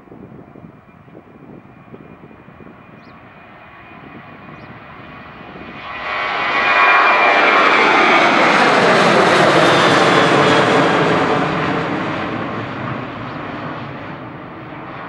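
Boeing 737-800 jet's CFM56-7B turbofan engines at takeoff thrust as the airliner lifts off and climbs past. The sound builds, jumps to loud about six seconds in with falling whine tones as it goes by, then fades as the jet climbs away.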